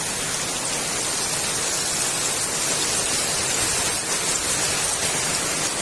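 Heavy rain falling steadily, an even hiss with no separate drops standing out.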